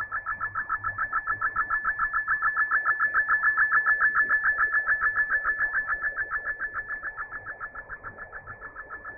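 Shortwave MFSK32 digital picture transmission heard through a receiver: two data tones sounding at once, pulsing rapidly about seven times a second over faint hiss. The signal swells up and then fades down again, as shortwave reception does.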